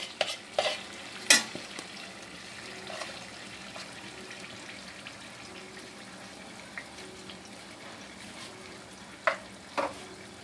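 Chicken pieces sizzling steadily in a non-stick pan as cold yogurt goes in over the masala, with a few sharp knocks of a spatula against the pan and bowl in the first second and a half and twice near the end.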